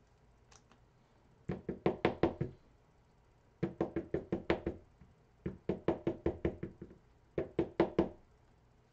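Four quick runs of knocks on a hard surface, five to eight sharp strokes in each run at about six a second.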